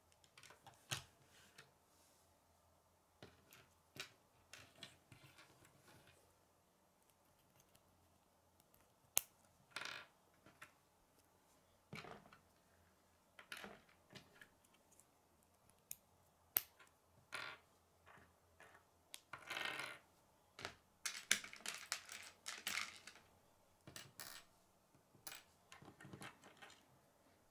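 K'nex plastic rods and connectors clicking as they are snapped together, handled and set down on a wooden tabletop: scattered sharp clicks and taps, with a denser run of clicking in the last third.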